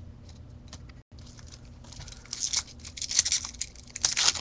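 Crinkly foil wrapper of a trading-card pack being torn open and handled, a crackling rustle that starts about two seconds in and grows louder toward the end.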